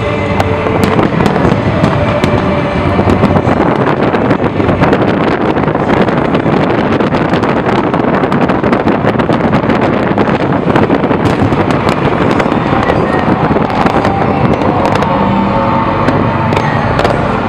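Fireworks display in full barrage: a dense, continuous run of shell bursts and crackling, with many sharp bangs packed close together.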